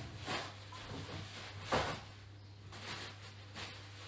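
Faint kitchen handling noises: soft rustles and light knocks, the clearest about 1.7 seconds in, over a steady low electrical hum.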